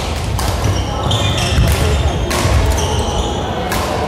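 Badminton rally on a wooden sports-hall floor: several sharp racket strikes on the shuttlecock, with sports shoes squeaking on the floor between them and a short echo after each hit.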